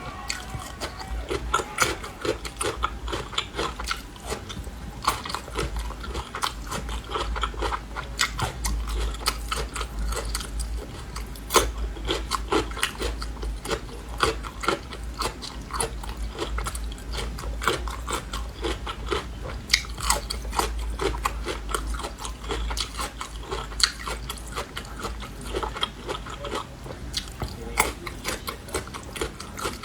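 Close-up chewing of crunchy Laba garlic, whole garlic cloves pickled green in vinegar: a steady run of crisp bites and crunches, several a second, with one especially loud crack about eleven seconds in.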